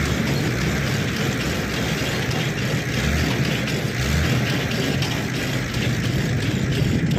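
Tractor engine running steadily as it drives a Krone Turbo 2800 loader wagon that is unloading cut grass onto a heap.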